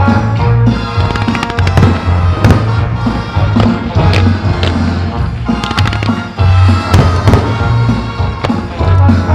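Fireworks display: shells and comets firing and bursting in quick succession, with sharp bangs over loud music that has a heavy bass line.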